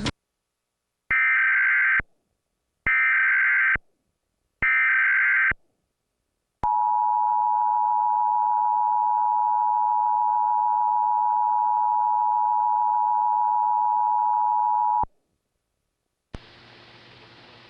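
Emergency Alert System test broadcast: three roughly one-second bursts of warbling digital data tones (the SAME header), then the steady two-tone EAS attention signal for about eight seconds. It cuts off, and near the end a click and a faint hum follow.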